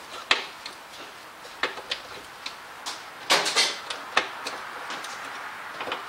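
Hands working heavy wires into an electrical breaker panel: scattered small clicks and knocks, with a short scraping rustle a little past halfway.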